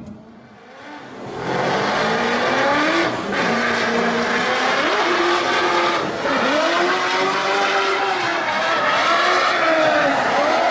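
Drift car engine revving hard, its pitch rising and falling as the throttle is worked through a drift, over tyre squeal. It comes in loud after a quieter first second or so, with short dips about three and six seconds in.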